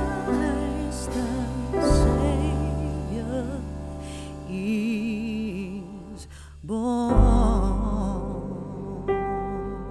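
Slow, tender music: sustained notes over a deep bass, with a melody line wavering in vibrato.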